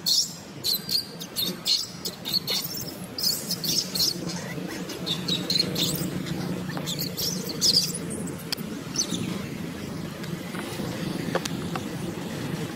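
Baby macaque giving many short, high-pitched squeals in quick succession while being grabbed and held down by a bigger monkey; the cries thin out after about nine seconds. A steady low hum runs underneath.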